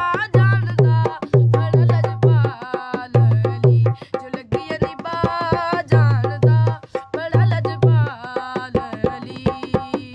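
A boy singing in a high voice while playing a dholak, its deep bass strokes landing in a steady beat with sharper slaps on the other head between them.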